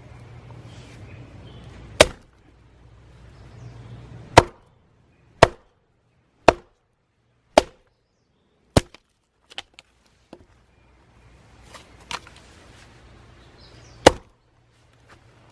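Hatchet splitting red pine logs into kindling. A series of sharp chops, about one a second through the middle, with a few fainter knocks between them.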